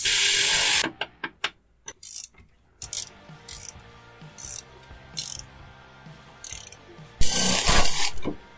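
Hand socket ratchet clicking as suspension bolts are turned: a long run of fast ratcheting at the start, short bursts of pawl clicks on each return stroke in between, and another long run about seven seconds in.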